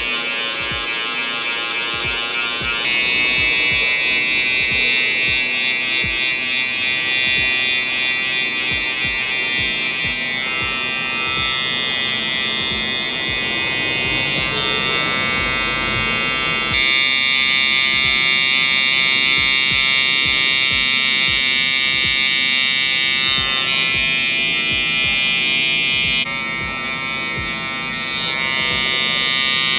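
Electric hair clippers, then a cordless hair trimmer, buzzing steadily as they cut short hair at the side and around the ear. The buzz changes character abruptly a few times, at about 3, 17 and 26 seconds in.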